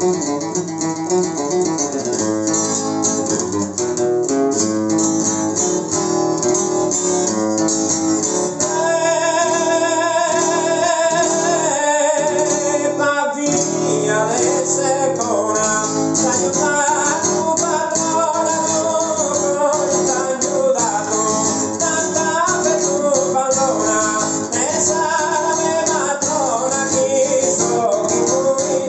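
Acoustic guitar played continuously, chords strummed and picked. From about nine seconds in, a voice sings a winding melody over it.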